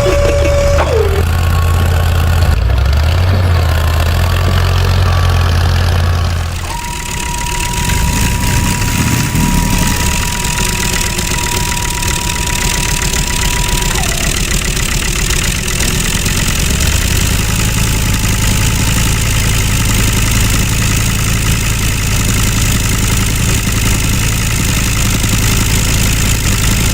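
Mini tractor engine running steadily. About six and a half seconds in the sound shifts, and a steady high whine runs alongside it for several seconds.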